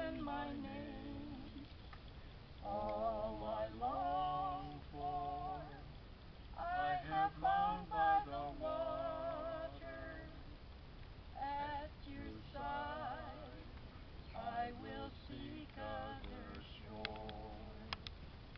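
A woman singing a slow worship song with vibrato, in sung phrases separated by short pauses. A few sharp clicks come near the end.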